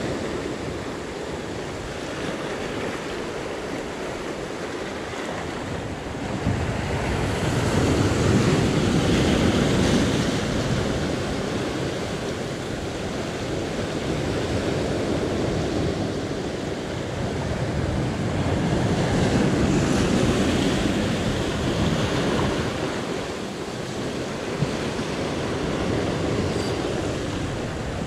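Sea waves washing against the shore in slow surges, swelling louder twice, about eight and nineteen seconds in, with wind on the microphone.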